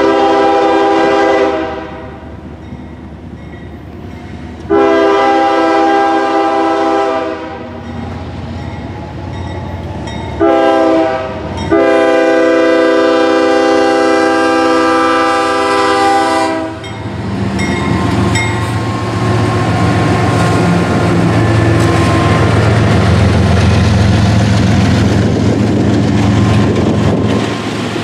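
A Nathan K5HL five-chime air horn on a CSX GE ES44DC locomotive sounds the grade-crossing signal: long, long, short, long. After the last blast ends, a little past halfway, the diesel locomotive runs past, followed by an empty coal train's hopper cars rolling on the rails with a steady rumble.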